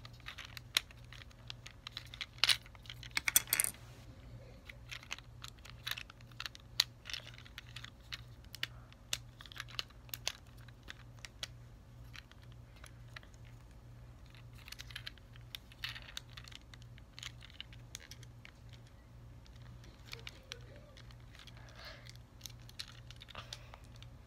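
Hard plastic parts of a Transformers Sideswipe action figure being handled and transformed from car to robot: irregular sharp clicks and clacks as panels and joints are moved and snapped into place. The clicks are loudest and most closely spaced about two to four seconds in.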